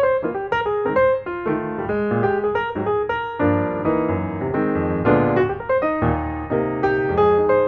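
Background piano music: a melody of separate notes over chords.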